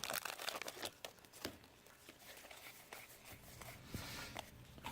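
Faint handling of trading cards: a few light clicks and soft rustles as the cards are sorted through, mostly quiet between them.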